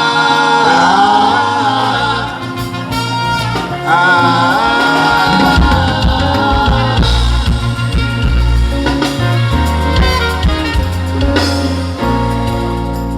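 Singing over band music. A heavy bass line comes in strongly about five seconds in.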